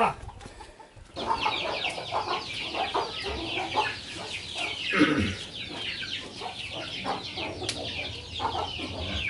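Chickens cheeping in a dense, steady chorus of short high calls, starting about a second in, with one louder call sliding down in pitch about five seconds in.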